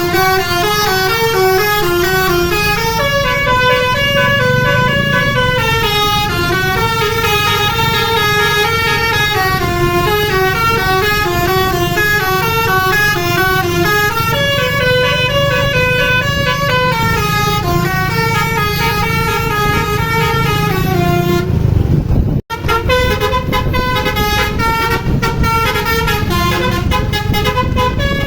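Basuri musical bus horn playing a fast tune of stepped notes over a low vehicle rumble. The sound cuts out for an instant about 22 seconds in, then the horn tune carries on.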